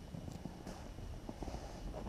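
Irregular crunching and scuffing in packed snow, with a low wind rumble on the microphone.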